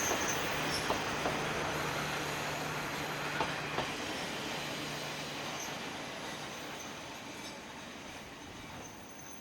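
KiHa 40 diesel railcar running on the line, its engine hum and wheel noise fading as it moves away, with a few sharp clicks from the wheels over rail joints and a faint high wheel squeal near the start. The engine hum drops out about six seconds in.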